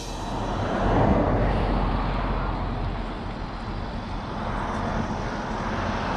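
Car engine and road noise, swelling about a second in and slowly fading, over a steady low rumble.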